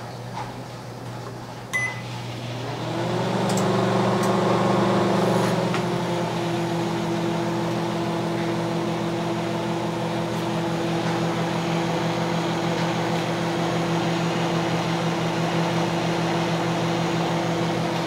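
Microwave oven's keypad beeps once as it is started, then the oven powers up with a hum that rises in pitch over about a second and settles into a steady hum for the rest of the time. It is running a heating cycle on a freshly fitted replacement magnetron.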